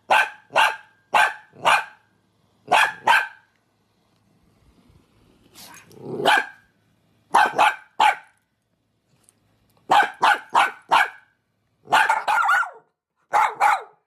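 Dachshund barking: many short, sharp barks in quick runs of two to four, with a pause of a couple of seconds in the middle.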